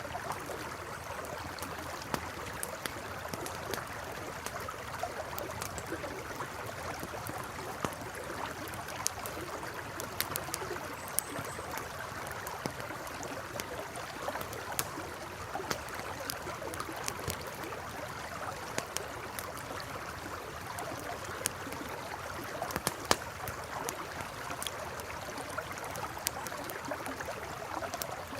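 A river flowing steadily, with a campfire crackling over it in scattered sharp pops and clicks.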